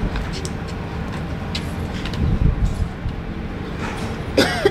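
Steady low rumble of a town street's traffic, with a few faint knocks. A short pitched call, like a voice, comes near the end.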